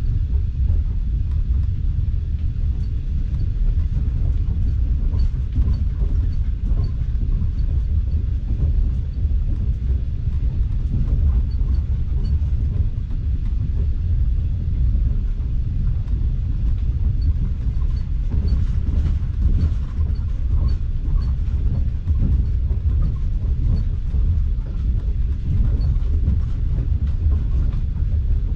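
Steady low rumble of a passenger train's carriage running along the track at speed, heard from inside the carriage, with faint light ticks now and then.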